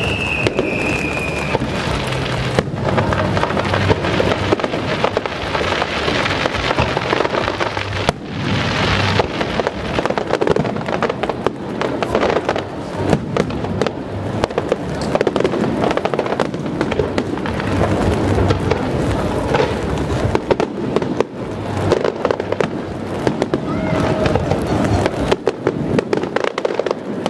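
Aerial fireworks display going off in a dense, unbroken barrage of shell bursts, bangs and crackling. A whistle falling in pitch dies away within the first two seconds.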